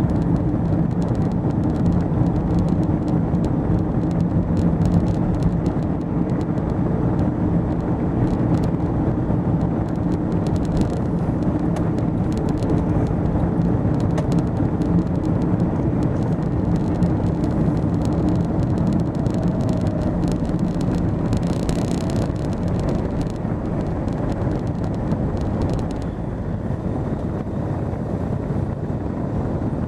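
Car engine and tyre noise heard from inside a moving car: a steady engine hum over road rumble, the engine note easing after about six seconds.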